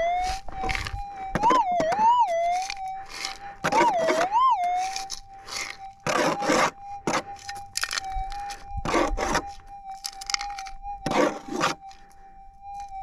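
Minelab gold detector's steady threshold hum, which warbles up and down in pairs four times in the first few seconds: the target signal of a small, shallow gold nugget in the hole. Repeated scraping and crunching of a digging tool and scoop in gravelly soil runs over it.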